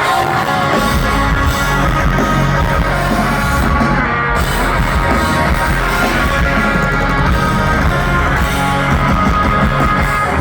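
Live rock band playing loud: electric guitars over heavy bass and drums, with the low end coming in about a second in.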